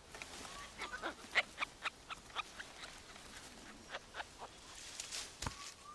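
Young Yunnan snub-nosed monkeys playing in the trees: a scatter of faint, short calls and clicks, irregularly spaced, over quiet forest background.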